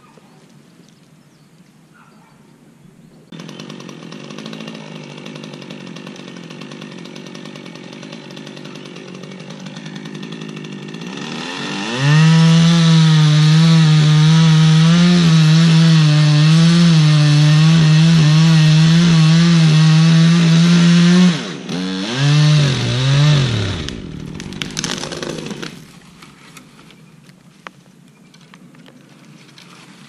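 Two-stroke chainsaw held at full throttle through a cut for about nine seconds, then blipped twice and let off. A brief rush of noise follows.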